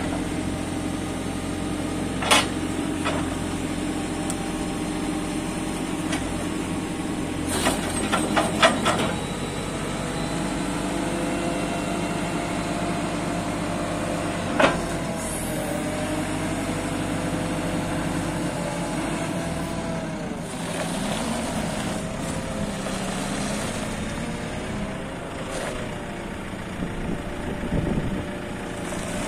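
JCB 540-170 telehandler's 110 hp JCB diesel engine idling steadily, its pitch wavering slightly late on. A few short sharp knocks stand out: one about two seconds in, a quick cluster around eight seconds in, and one near fifteen seconds in.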